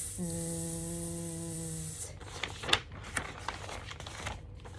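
A person's voice holding one steady pitch for almost two seconds, then a couple of seconds of light clicks and rustling.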